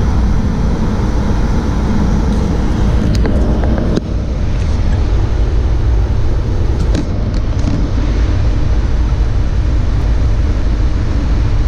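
Steady cockpit noise of a jet airliner on approach: airflow and engine rumble, heaviest in the low range, with a brief dip about four seconds in and a few faint clicks.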